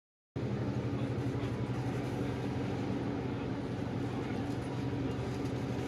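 A vehicle running: a steady low hum with an even rushing noise. It starts suddenly a moment in, after a brief silence.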